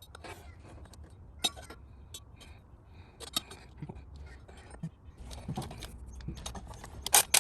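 Metal hand tools and bolts clinking and tapping as they are handled during engine repair work, in scattered short clicks over a low steady hum, with a loud clatter near the end.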